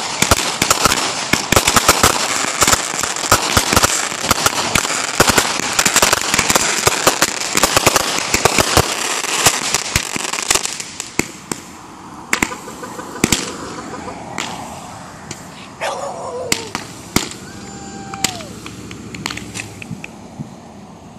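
Fireworks firing in a rapid barrage: dense, overlapping bangs and crackling for about the first ten seconds, then thinning to scattered pops over a softer crackle and hiss.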